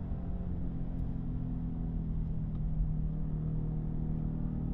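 Pickup truck engine running as the truck drives slowly: a steady low engine note that shifts in pitch slightly now and then.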